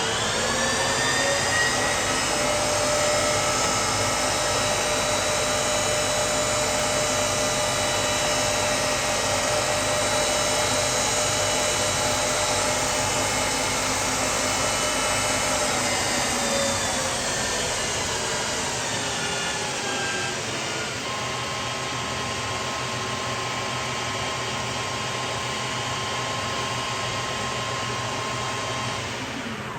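Huvema metal lathe running under power, its motor and gears whining with several steady tones. It winds up to speed at the start, runs steadily, then slows about halfway through and settles at a lower steady pitch before cutting off near the end.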